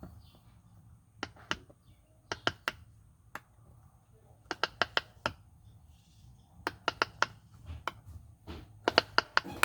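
Silicone Pop It fidget toy bubbles being pressed, giving sharp little pops in irregular clusters of two to five, with a quick run of pops near the end.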